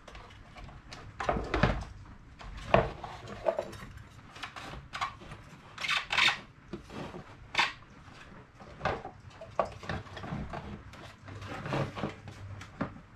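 Irregular clicks, knocks and clatter of hard plastic vacuum cleaner parts being handled and pulled apart during disassembly.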